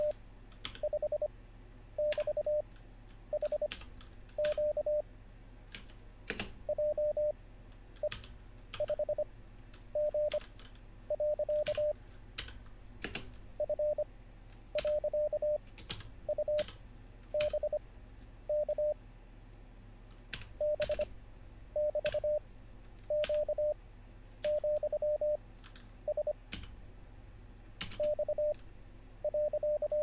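Computer-generated Morse code practice: random code groups sent as a steady 600 Hz beep, each character keyed fast at 25 wpm with long Farnsworth gaps between characters (5 wpm effective). Computer keyboard keystrokes click between the characters as they are copied.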